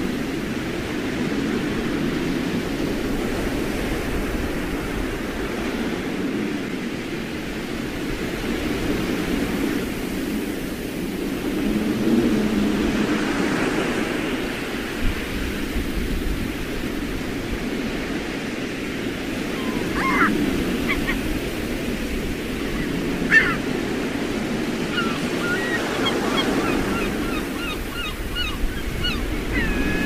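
Sea waves washing on a shore in strong wind, a steady rushing that swells and falls. In the last third, birds call briefly, then in a quick run of short repeated calls near the end.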